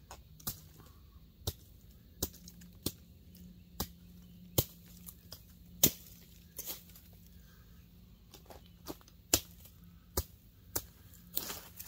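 Machete blade chopping through brush stems at ground level: a dozen or so sharp strikes at an uneven pace, about one a second. A longer rustle near the end as plant material is pulled away.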